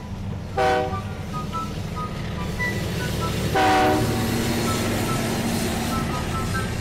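Steady rumble of a moving train, with two short toots of a train whistle: one about half a second in and another just before four seconds.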